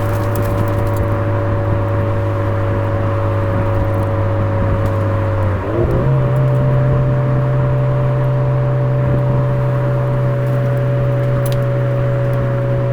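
Suzuki Swift Sport ZC33S's 1.4-litre turbocharged four-cylinder running through a Fujitsubo aftermarket exhaust at a steady low drone; about six seconds in the note dips briefly and comes back at a higher steady pitch, a downshift raising the revs on the descent.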